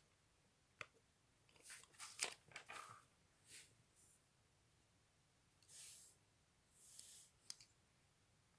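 Faint clicks and rustling of small plastic LEGO pieces being handled during a build: one sharp click about a second in, a quick run of clicks and rustles, then a few soft rustles and a last click near the end.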